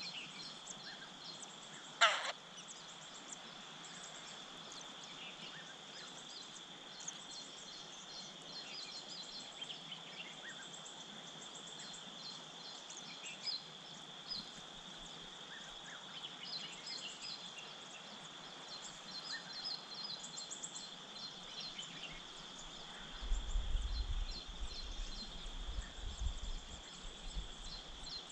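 Birds chirping in many short, high notes over a steady high-pitched drone, with one loud call sweeping downward about two seconds in. A low rumble comes in near the end.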